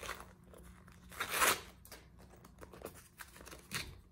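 Packing material rustling and crinkling as it is handled and pulled from a wallet's pockets, with light clicks of handling. There is a louder rustle about a second and a half in and a shorter one near the end.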